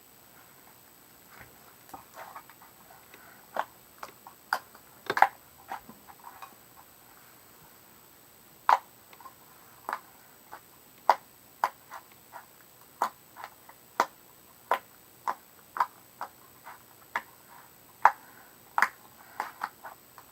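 Homemade slime being stretched and squeezed in the hands, making a series of short, sharp sticky pops and clicks at irregular intervals, roughly one every half second to a second.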